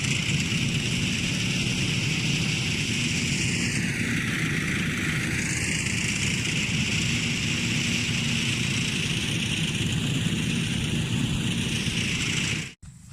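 A small engine running steadily, its pitch sagging briefly about four seconds in and then recovering, before the sound cuts off abruptly near the end.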